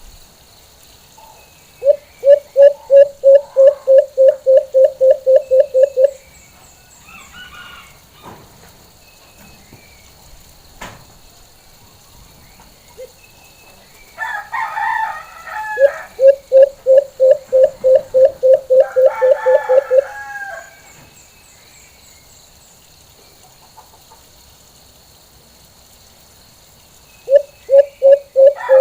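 White-eared brown dove calling in three bouts, each a rapid series of about four or five coos a second at one steady pitch, lasting about four seconds: one about two seconds in, one about sixteen seconds in, and one starting near the end. A rooster crows twice in the background, just before and just after the middle bout.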